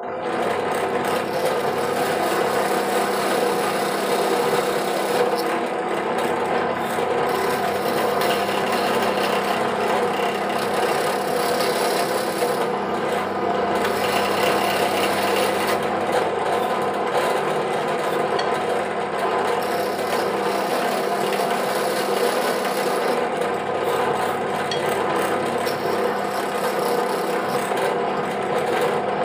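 Drill press running steadily, its thin cutting bit rasping into a block of sono kembang (angsana) hardwood held against it by hand, over a constant motor hum.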